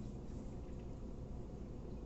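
Quiet room tone with a low, steady hum and no distinct sounds.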